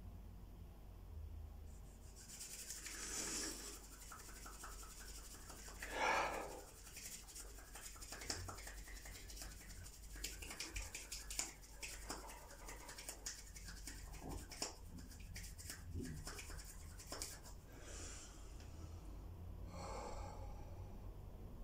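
A man's forceful breaths, several seconds apart, the strongest about six seconds in, with his palms rubbing together and faint clicks and rustles in the middle stretch.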